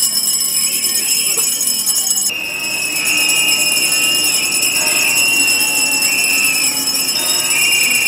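Many small handbells ringing together. About two seconds in there is an abrupt change to a crowd blowing whistles: a shrill, wavering whistling that keeps going, with some bell ringing still under it.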